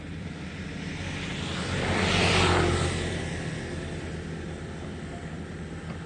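Kubota U50 mini excavator's diesel engine running steadily. About two seconds in, a rushing noise swells up and fades away again over roughly two seconds.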